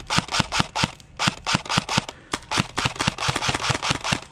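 Airsoft guns firing: a rapid, uneven string of sharp shots, several a second.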